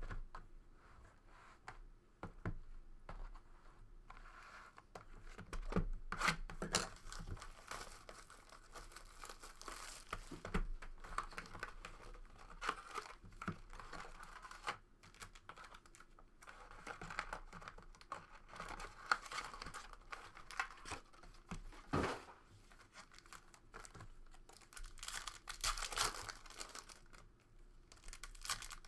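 Trading card packs and box wrapping being torn open by hand, with irregular crinkling and crumpling of plastic and foil wrappers and sharp little snaps.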